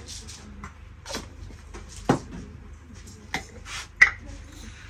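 Sharp clicks and short rattles of small glass spice jars being handled and peppercorns poured into a small wooden hand grinder. The loudest clicks come about two seconds in and about four seconds in.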